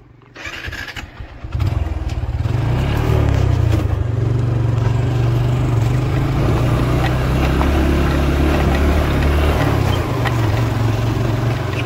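Motorcycle engine getting louder about a second and a half in, then running steadily as the bike rides over a loose, stony dirt track.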